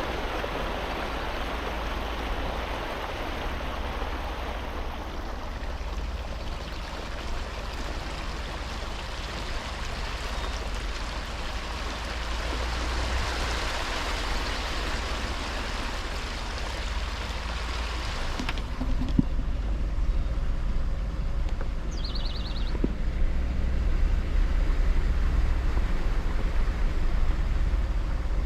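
A vehicle driving through flood water: a steady low engine and road rumble under a hiss of water spraying and splashing from the tyres. The water hiss stops abruptly about eighteen seconds in, leaving mainly the low rumble.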